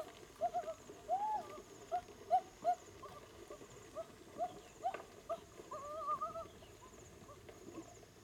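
An animal's short, repeated calls, about two or three a second, with a longer wavering call about six seconds in.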